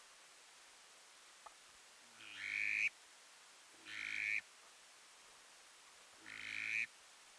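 Three drawn-out, nasal duck quacks, each about two-thirds of a second long, swelling in loudness and cutting off sharply, a second or two apart.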